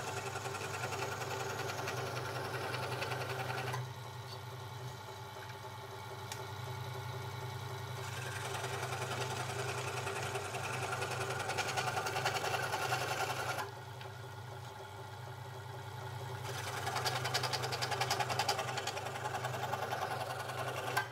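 Scroll saw running, its blade chattering up and down very fast as it cuts notches into a small wooden block for sprocket teeth. The sound drops quieter twice for a few seconds, then the cutting noise picks up again.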